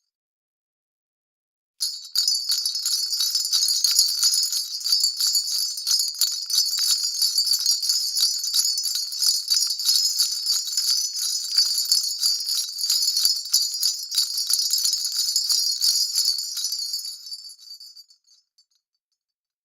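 2.25-inch round jingle bells (sleigh bells) jingling steadily. The sound starts suddenly about two seconds in and fades away near the end.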